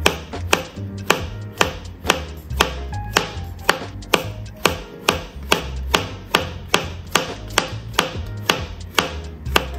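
Chef's knife thinly slicing button mushrooms on a cutting board: an even rhythm of knife taps on the board, about two a second.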